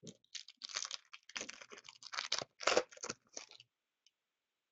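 Hockey card retail pack's wrapper being torn open and crinkled by hand: a run of irregular rips and crackles lasting about three and a half seconds.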